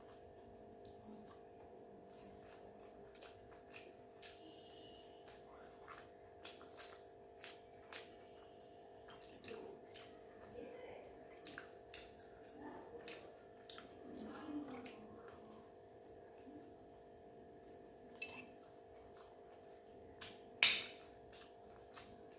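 A person eating at close range: soft wet chewing and mouth sounds with scattered clicks and clinks of a utensil against a dish. There is one sharper clink near the end, all over a steady low hum.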